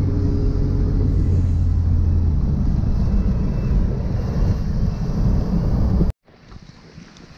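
Steady low engine and road rumble inside a car's cabin while driving on a wet road. About six seconds in it cuts off abruptly, and a much fainter outdoor noise follows.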